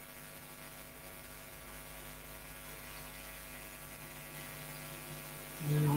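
Steady electrical hum and buzz from mains interference on the recording line: many fixed tones under a light hiss. Near the end, a brief louder voice sound cuts in.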